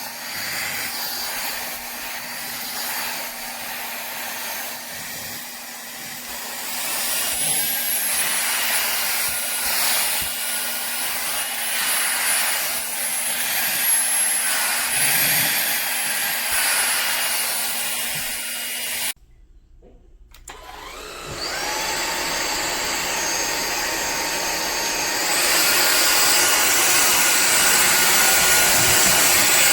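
Powerffy N10 cordless stick vacuum running with a high motor whine that shifts in pitch as it works. About two-thirds of the way through it cuts out, then spins back up with a rising whine and steps up to a louder, higher pitch near the end.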